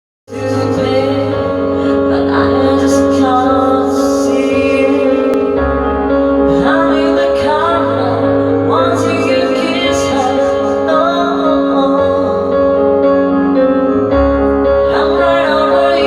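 Music: a woman singing, her voice bending through ornamented phrases, over sustained keyboard chords and a low bass line.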